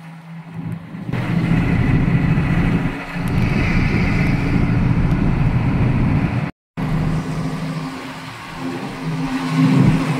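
A vehicle engine running steadily under a broad rush of noise that comes in about a second in. There is a brief dropout to silence a little past the middle.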